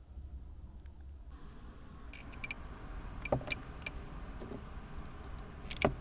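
Sharp plastic clicks and knocks from handling a small clip-on fan and its clamp as it is fitted, several in a row in the middle and the loudest one near the end. A faint steady high-pitched whine comes in about a second in.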